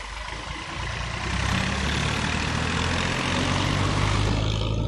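Dump truck's engine running as it drives past close by. It is a steady low hum that builds over the first second and a half, with road noise over it.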